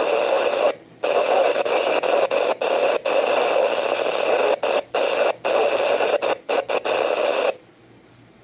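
Static hiss from a ham radio transceiver's speaker, with no readable voice, cutting in and out with many short dropouts. It stops about seven and a half seconds in, leaving only a low hum.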